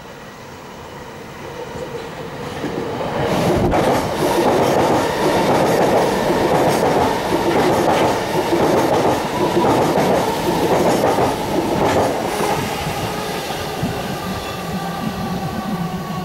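Electric suburban passenger train passing directly beneath, its wheels clattering rhythmically over the rails. The sound builds over the first few seconds, is loudest for about eight seconds as the train goes under, then fades as it draws away.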